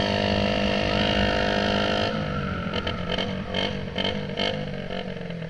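Motorcycle engine running loud through a newly fitted aftermarket exhaust tip, held at steady revs. About two seconds in the throttle closes and the note drops and falls lower, with a few short sharp sounds as it winds down.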